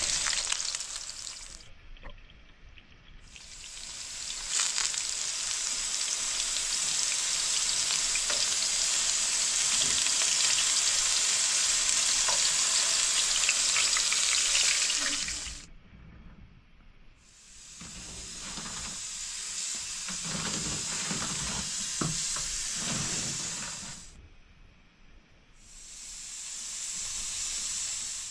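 Food frying and sizzling in hot fat, an even hiss that drops out briefly three times and comes back.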